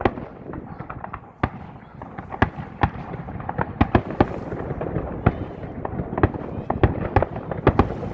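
Fireworks display: an irregular run of sharp bangs and cracks, at times several a second, over a steady background din, with the loudest reports about four seconds in and near the end.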